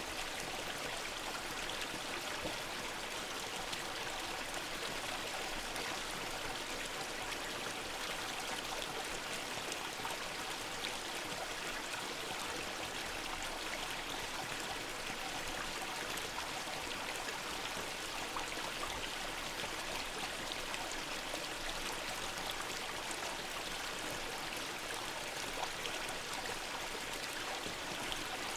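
Mountain waterfall and river: a powerful, steady rush of falling and flowing water, even and unbroken throughout.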